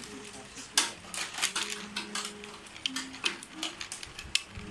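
Plastic toy train car clicking and clattering as it is handled and set down on a wooden table, in a string of sharp, irregular clicks.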